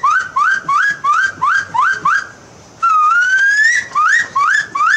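A loud series of rising whistled notes: a long upslurred whistle followed by a quick run of short rising notes, about three a second, then after a short gap another long rising whistle and more short notes.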